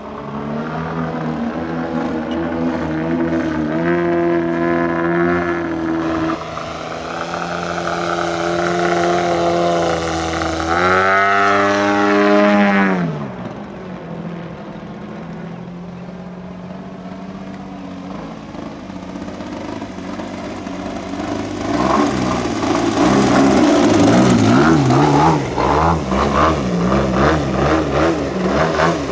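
Engine and propeller of a large radio-controlled AJ Laser aerobatic model plane in flight, a steady engine tone whose pitch shifts through the manoeuvres. About twelve seconds in the pitch drops sharply and the sound falls quieter, then it grows loud again from about twenty-two seconds as the plane comes low and close.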